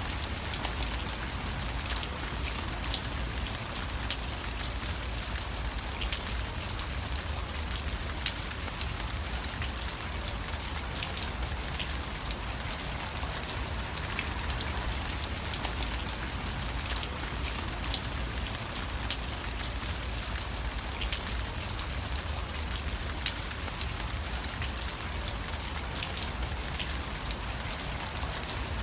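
Steady rain falling, with sharp individual drops ticking now and then over the continuous patter.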